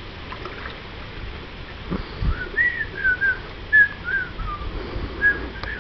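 A person whistling a short tune of sliding notes that step downward, then a second short phrase starting near the end. A low thump about two seconds in.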